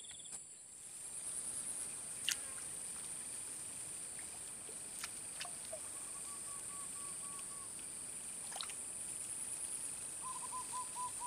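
Steady high-pitched chorus of insects such as crickets in swampy grassland, with a few sharp clicks. Twice there is a run of short, evenly repeated notes, once in the middle and again near the end.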